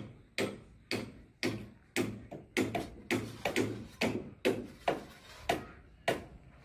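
Background music of short plucked or tapped percussive notes at a steady beat, about two a second.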